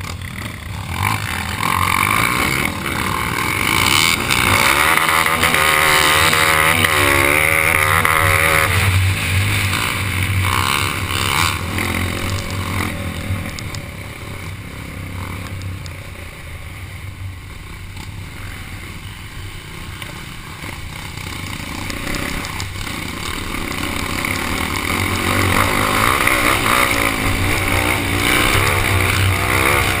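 Dirt bike engine riding along a trail, close to the microphone, its revs rising and falling as it accelerates. Loudest a few seconds in, it eases off in the middle and picks up again near the end.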